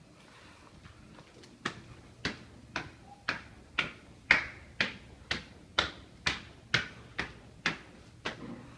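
Footsteps on hard stair steps: about fourteen sharp steps at roughly two a second, starting about a second and a half in.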